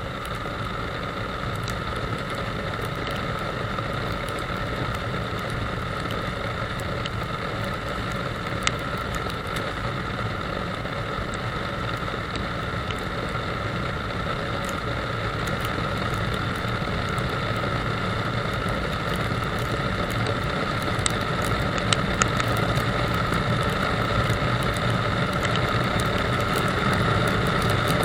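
Motorcycle engine running steadily at road speed under a rush of wind noise, slowly getting louder. There are a few sharp ticks about nine seconds in and again around twenty-one to twenty-two seconds in.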